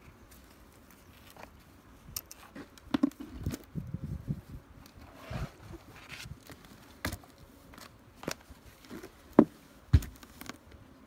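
Footsteps on sawdust-covered ground with scattered, irregular knocks and clicks, two sharper knocks near the end.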